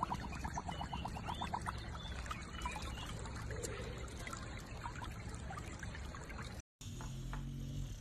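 Water trickling and running in a shallow stone-lined stream, with a quick run of high chirps in the first couple of seconds. It cuts off abruptly near the end.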